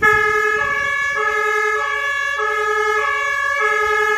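German fire truck two-tone siren (Martinshorn) sounding its tatütata: a low and a high note alternating steadily, each held a little over half a second, cutting in suddenly at the start.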